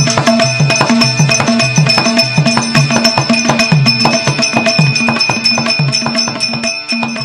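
Traditional Tamil folk drum music: fast, dense drumming over a low drum figure that repeats about twice a second with a downward pitch bend, and a steady high ringing tone over it, fading out near the end.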